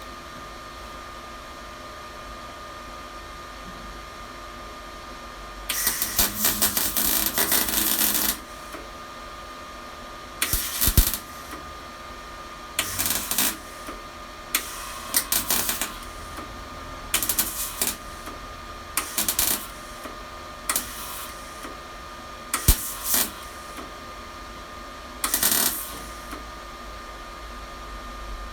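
Electric welding on the steel body panels of a Classic Mini: crackling weld bursts, one of about two and a half seconds, then about nine short tack-and-stitch bursts of under a second each, over a steady faint hum.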